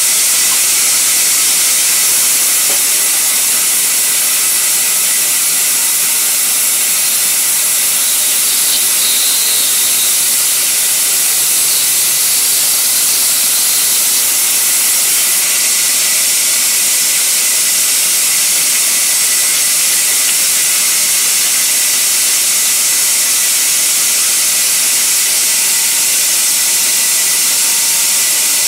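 Sawmill band saw resawing a sal wood beam: a loud, steady high hiss of the blade cutting through the timber, with no letup.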